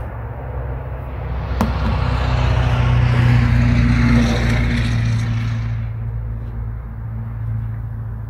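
A motor vehicle passing by: a low engine drone with road noise that swells to its loudest midway and fades away. A single sharp click sounds about one and a half seconds in.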